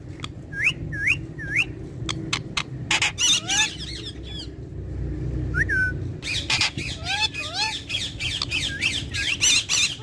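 Indian ringneck parakeet squawking: sharp harsh calls mixed with short rising whistles, coming in quick runs with a lull around the middle.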